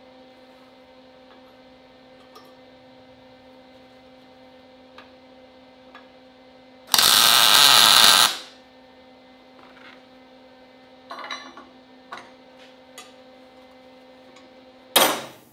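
Wire-feed (MIG) welder laying one short weld, a steady hissing crackle of about a second and a half, about seven seconds in, over a steady electrical hum. Later come a few light clicks of steel parts and clamps being handled, then a sharp metal clank near the end.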